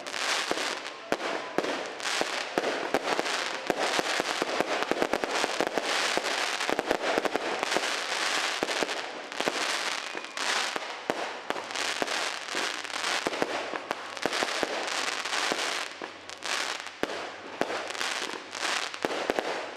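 Aerial fireworks going off: a dense, unbroken run of sharp bangs and crackles.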